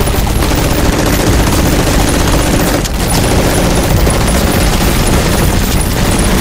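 Continuous rapid gunfire, a dense volley of shots with no break except a brief dip about three seconds in.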